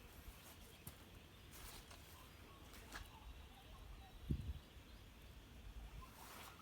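Quiet outdoor background with a few faint, short bird chirps and one soft low thump about four seconds in.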